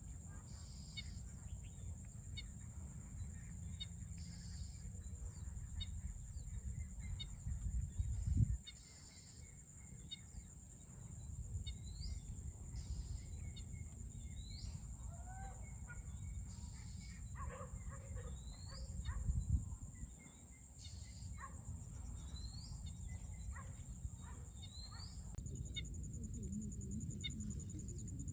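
Outdoor rural ambience: a steady high insect buzz with short rising bird calls repeating every second or two, over a low rumbling noise that swells louder twice, about eight and nineteen seconds in.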